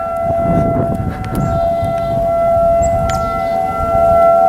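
Outdoor tornado warning siren sounding a steady chord of two close tones without rising or falling, growing a little louder toward the end, during its scheduled monthly test.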